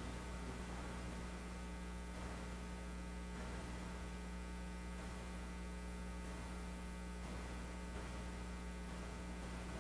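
Steady electrical mains hum with a layer of hiss on an idle audio line.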